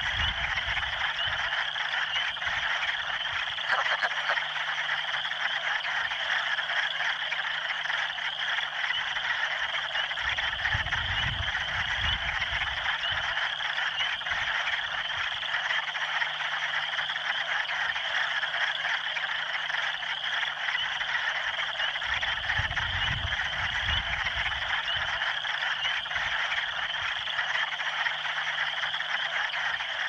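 Wood frogs (Lithobates sylvaticus) calling in a dense chorus, many voices overlapping into one continuous, unbroken sound.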